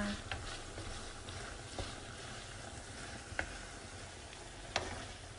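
Minced-beef and tomato pasta sauce sizzling in a frying pan while it is stirred with a wooden spatula, which knocks against the pan a few times.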